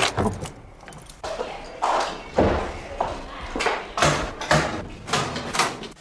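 A series of about ten irregular knocks and clunks: a key turning in an old door lock and the door opening, then cards being punched in a mechanical time clock and pushed into a card rack.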